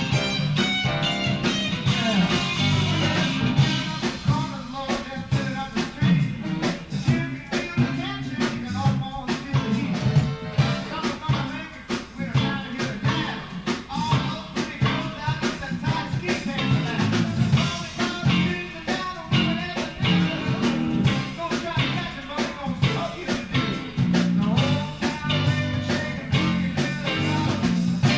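Band music with guitar and a steady drum beat.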